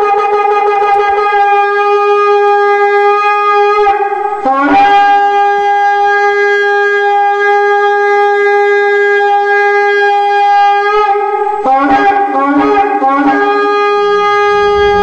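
A loud, sustained reedy wind-instrument note held almost unchanging as film score. About four and a half seconds in it slides up in pitch, and around twelve seconds in it breaks into a short run of lower notes before settling back on the held tone.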